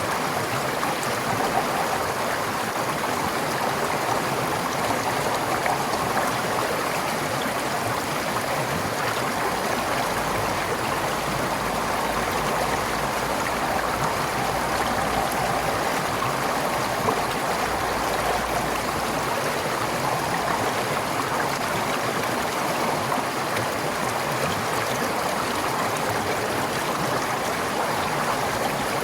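Forest stream flowing steadily, an even rush of water with no breaks.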